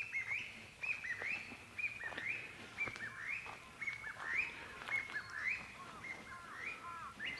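Birds chirping: a steady run of short, hooked call notes, two or three a second.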